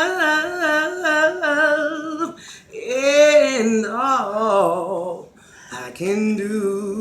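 A solo voice singing unaccompanied, drawing notes out with wavering runs, in three phrases with short breaths between them.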